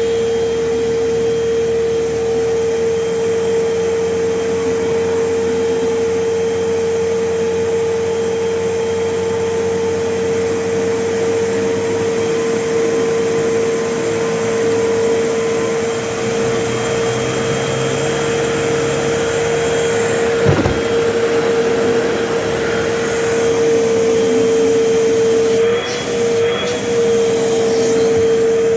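Vacuum cleaner running steadily while vacuuming the floor, its motor giving a constant hum. A single sharp knock comes about two-thirds of the way through, and the tone wavers briefly a few times near the end.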